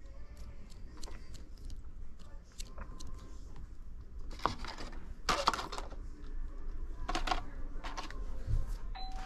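Small tools and parts clicking and clattering as they are handled and moved about on a phone-repair bench, with a few louder clusters of clatter about halfway through; a faint steady tone begins near the end.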